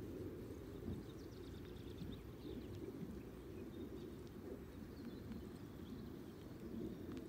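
Steady low rumble of wind buffeting the microphone beside a pond, with faint high bird chirps now and then.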